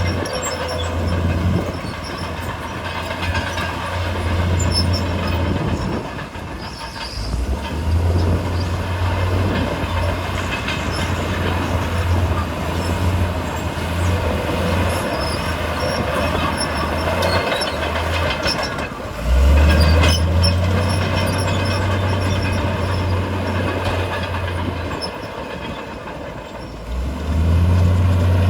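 Heavy diesel earthmoving machinery at work: a deep engine note that fades and swells, loudest about two-thirds of the way in, over continual clanking and scraping of steel and rock.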